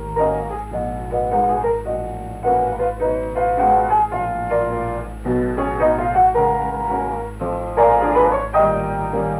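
Piano music: a steady run of notes and chords over a constant low hum.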